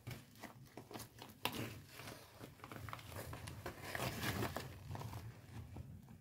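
Irregular crunching and crackling of boots shifting on wet gravel and rock rubble, with a sharp click about a second and a half in and a denser run of crackles around four seconds in.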